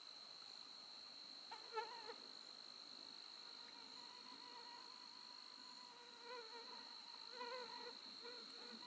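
A faint, steady, high-pitched insect trill. Over it a mosquito's wavering whine passes close by about a second and a half in, and again for a couple of seconds near the end.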